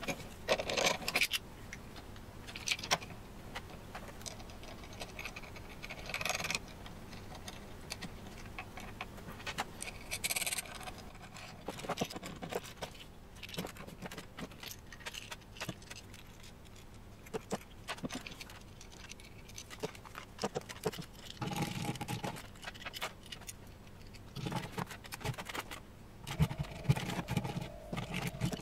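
Intermittent clinks, taps and scrapes of small metal parts and hand tools being handled on a wooden tabletop while a spindle motor and its collet chuck are assembled and fitted to a small CNC router.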